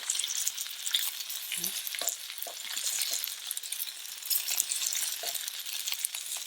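Gyoza frying in hot oil in a frying pan: a steady sizzle with many small pops and crackles.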